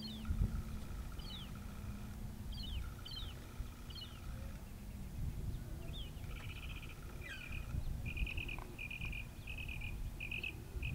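Bird calls: a run of short, sharp notes, each sliding downward in pitch. From about six seconds in, these give way to a series of buzzy notes repeated at one pitch about twice a second, over a low rumble.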